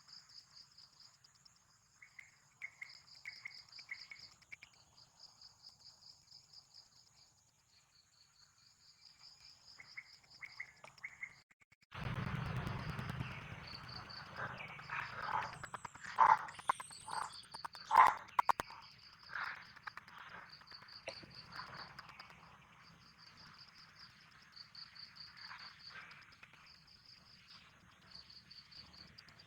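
Crickets or other insects chirping in steady rhythmic pulses. About halfway through the sound jumps to a louder patch of rustling, with a few sharp loud knocks, while the chirping carries on.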